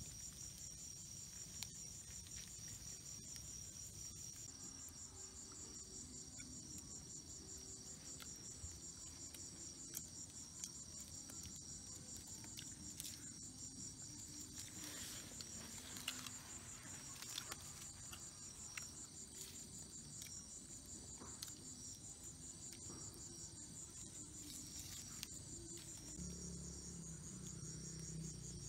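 Night insects chirping together in a steady, fast-pulsing high trill, with a few faint clicks scattered through it.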